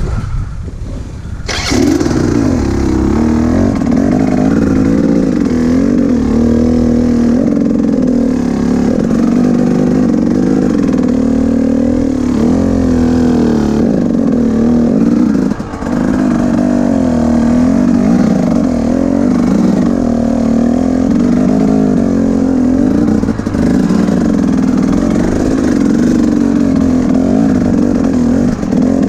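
Two-stroke dirt bike engine picks up sharply about a second and a half in, then runs hard with the revs rising and falling as the bike is ridden over rough trail, with a brief dip near the middle.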